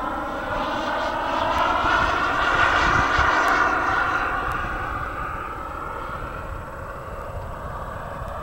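Radio-controlled scale model of a Grumman F9F Cougar jet flying overhead. Its engine's steady pitched note swells to its loudest about three seconds in, then fades as the model flies away.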